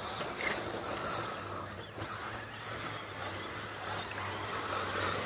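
Radio-controlled stadium trucks racing on a dirt track, heard faintly: thin rising and falling motor whines over a low steady hum.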